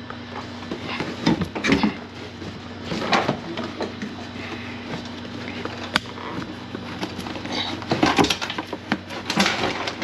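Scuffing, rustling and knocking as the floor carpet of a Mk5 Volkswagen GTI is pulled up by hand, with a sharp click about six seconds in. A steady low hum runs underneath.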